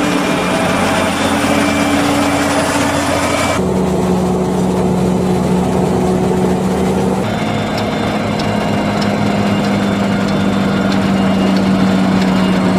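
Claas Jaguar 850 forage harvester running under load while chopping maize, a steady engine drone holding one pitch. Its tone shifts abruptly twice, about four and seven seconds in.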